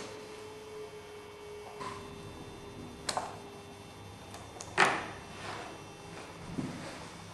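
Metal chainsaw parts being handled as the bar and chain come off a Stihl MS260: four separate clinks and knocks, the loudest about two-thirds of the way through.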